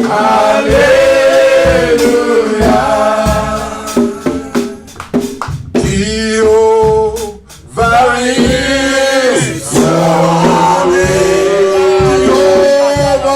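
Gospel worship song: a man singing praise with a band, drums keeping a steady beat under the voice.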